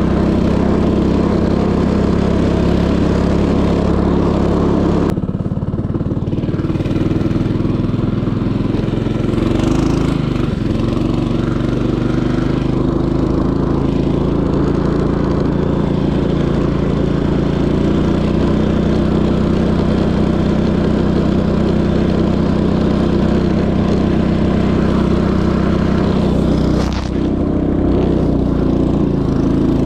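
Motorized snowboard's small engine running steadily. Its tone shifts abruptly about five seconds in, and it dips briefly near the end.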